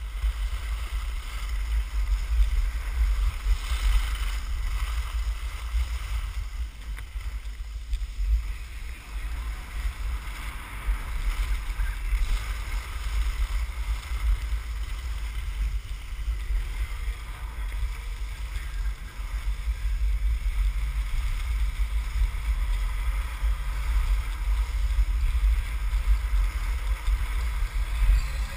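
Wind buffeting a GoPro's microphone at skiing speed, a steady low rumble, with a hiss of skis sliding and carving on snow.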